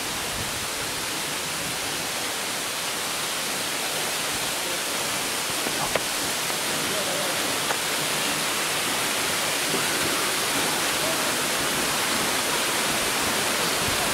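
Steady rush of fast-flowing water, growing slightly louder, with two faint clicks about six and eight seconds in.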